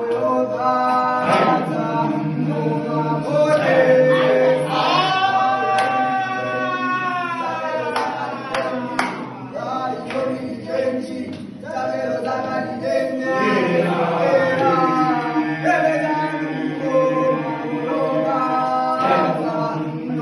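A group of school students singing a cappella in harmony, voices holding long chords together.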